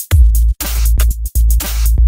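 Loud electronic dance music with a heavy bass and drum-machine beat, chopped by brief gaps.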